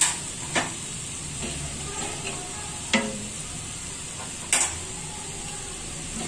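Sliced onions, garlic and bay leaves frying in hot oil in a nonstick pan, a steady sizzle, with four short sharp knocks scattered through it. The onions are fried brown for the tempering (baghar) poured over dal.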